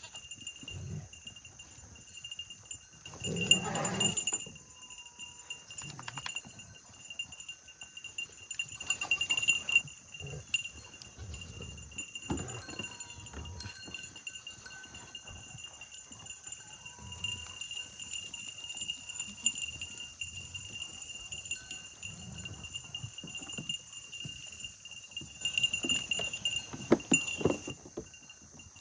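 Goats bleating now and then, several louder calls spread through the stretch, over a steady high-pitched tone in the background.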